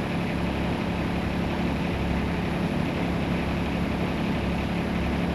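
Tractor engine idling steadily, a low even hum.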